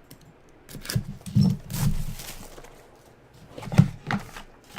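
Handling noise of a trading-card box being opened and the card taken out: a few sharp clicks and knocks of cardboard and hard plastic, with a brief scraping rustle about a second and a half in.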